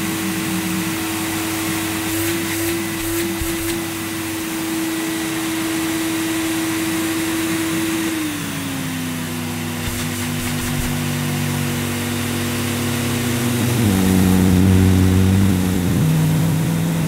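Electrolux Elite vacuum cleaner motor running with a steady whine that drops in pitch about halfway through as the motor slows. A louder, lower growling sets in near the end. The owner is sure the motor sound is not normal and suspects the motor is caked in muck.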